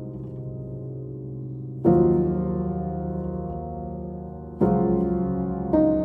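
Slow, calm background music: sustained chords struck three times, each left to ring and fade slowly.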